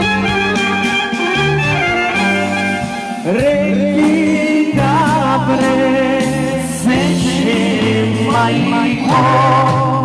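Live folk band playing a Macedonian dance song, first an instrumental passage, then a male singer comes in about three seconds in and sings with a wavering, ornamented voice over the band.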